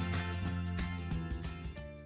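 Background music fading out near the end.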